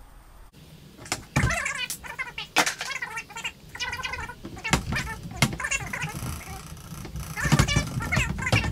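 Fast-forwarded time-lapse audio: rapid, high-pitched chattering of sped-up voice mixed with quick handling clicks and knocks.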